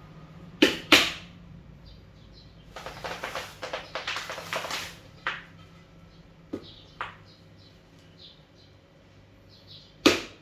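Two sharp knocks close together, then a few seconds of crackly rustling, then another sharp knock near the end; faint high chirps, like small birds, sound in between.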